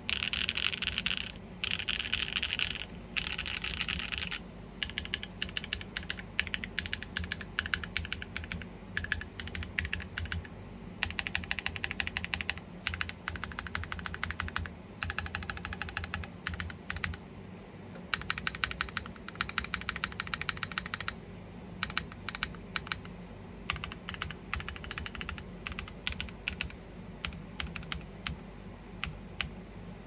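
Typing on a GEONWORKS F1-8X V2 custom mechanical keyboard with factory-lubed Diamond Avalon switches on an aluminum plate and GMK keycaps, with no added dampening. Fast runs of keystrokes come in bursts, then thin out to separate single key presses over roughly the last third.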